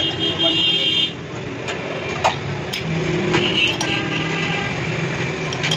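Steady machine hum in a lathe workshop, with a faint high whine at times and a few light metal clicks and taps.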